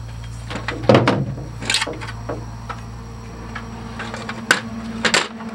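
A handful of sharp knocks and clunks from metal parts or tools being handled, the loudest about a second in, over a steady low hum.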